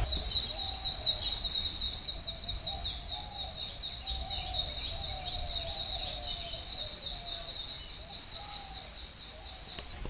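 High-pitched chirping from birds or insects in tropical vegetation, short chirps repeating rapidly several times a second, over fainter lower, falling calls. It grows gradually quieter near the end.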